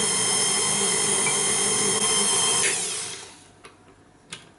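KitchenAid Artisan stand mixer running with its flat beater working cocoa shortcrust dough: a loud, steady motor whine. The motor is switched off about two and a half seconds in and winds down, followed by a few light clicks.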